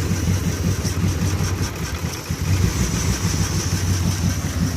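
A 2008 Ram 1500's 4.7-litre V8 idling unevenly, its loudness wavering irregularly, with a faint steady hiss above it. The engine is misfiring, the random-misfire fault logged as code P0300.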